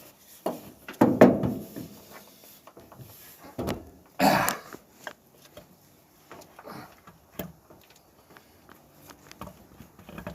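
Irregular clunks and scrapes of a heavy air compressor being worked by hand toward its mounting studs on a Caterpillar 3408 engine, a heavy part that won't seat. The loudest knocks come about a second in and again about four seconds in.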